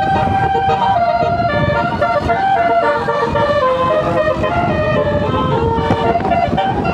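Basuri musical bus horn playing a melody of quick stepped notes that rise and fall, over a steady low rumble of background noise.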